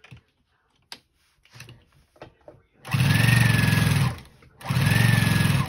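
Electric sewing machine stitching through layered denim quilt squares in two runs of about a second each, with a short pause between, starting about three seconds in. A few faint clicks come before the stitching.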